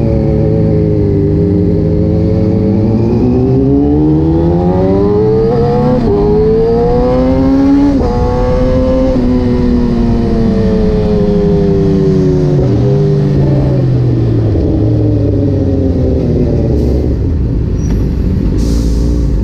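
Kawasaki ZX-10R inline-four engine pulling up through the gears, its pitch climbing with a break at a shift about six seconds in, then falling away as the bike slows, with a quick dip near two-thirds of the way through, before running lower and steadier, with wind rumble underneath.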